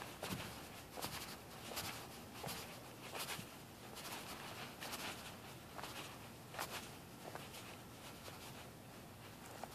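Faint footsteps on a sidewalk at a steady walking pace, about one step every three-quarters of a second.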